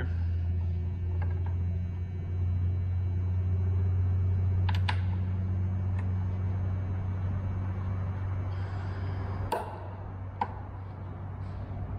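Steady low hum in the background, with a few light metal clicks and taps as small AN bolts and washers are fitted into a landing-gear bracket. The clicks come two together a little before halfway, then singly toward the end.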